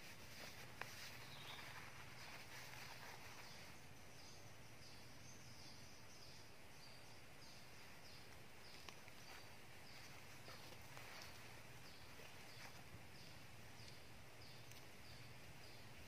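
Faint outdoor ambience with a low steady hum. From about four seconds in, a short, high, falling call repeats evenly, about three every two seconds.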